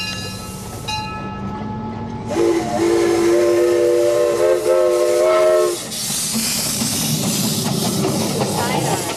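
Steam locomotive whistle blowing one long chord of several tones for about three and a half seconds, starting a couple of seconds in. A steady hiss follows it.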